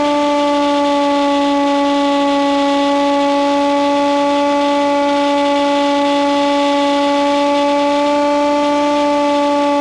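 Steady drone of a Hawk Sky model plane's electric motor and propeller under power: one pitch with overtones, holding nearly level and sagging very slightly, over a faint hiss.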